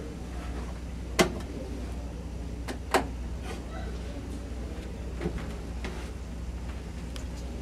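Steady low hum with a few sharp knocks: the loudest about a second in, then two close together around three seconds in.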